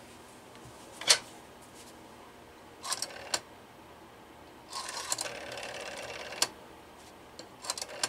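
Western Electric rotary telephone being dialed: a sharp clack about a second in as the handset comes off the cradle, a few clicks as a digit is wound on the dial, then the dial spinning back for under two seconds with its governor whirring while it sends the dial pulses. More clicks near the end as the next digit is wound.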